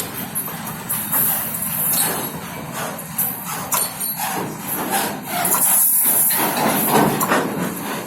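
A freight train running, heard from the guard's van: a steady rushing noise with rattling and clanking knocks, growing louder about five seconds in.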